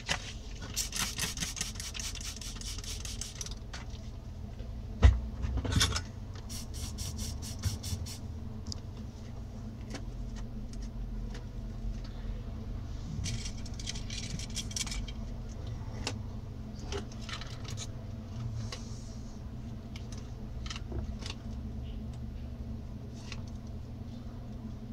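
Small hard tools and objects being handled and rummaged on an electronics workbench: bursts of rapid clattering and rattling, scattered ticks, and one loud knock about five seconds in, over a steady low hum.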